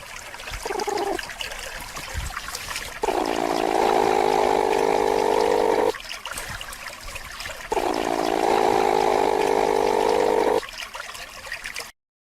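Platypus growling: two long growls of about three seconds each, with a short faint one before them, over the sound of running water.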